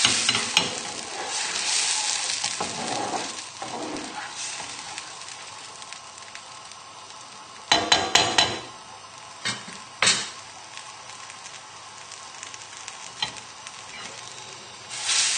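Cream sauce bubbling and sizzling in a pan on full heat as it reduces and thickens, stirred now and then. A quick cluster of sharp knocks about eight seconds in, with a couple of single knocks just after.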